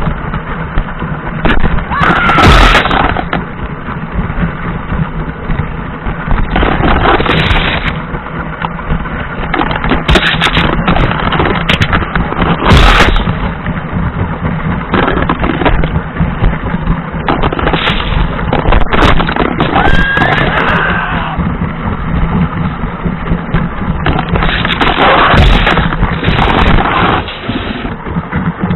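Lego 12-volt 7745 train motor running, its wheels rattling over the rail joints, heard from a camera riding on the train. A few sharp knocks stand out as the train rams minifigures on the track, with brief squeals now and then.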